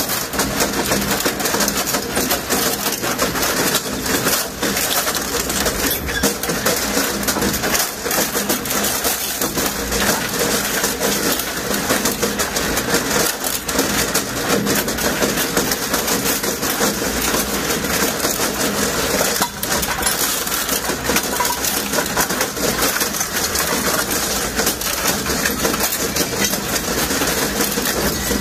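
SSI M85 dual-shaft shredder running steadily, with a dense continuous clatter of knocks and crunches.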